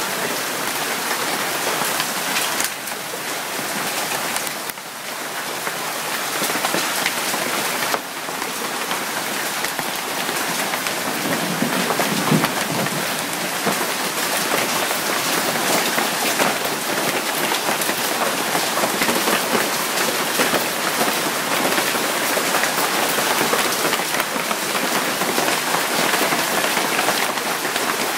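Hailstorm: hail and rain falling steadily in a dense, even patter on the ground, plants and surfaces all around.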